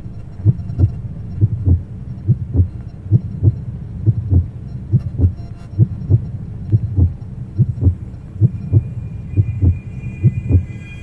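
Heartbeat sound effect: low, paired lub-dub thumps repeating steadily at about one beat a second. A faint, steady high tone joins near the end.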